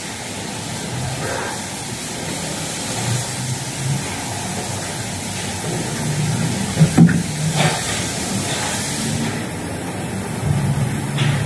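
Steady hissing background noise of a vehicle service bay with a faint low hum, and a sharp click about seven seconds in.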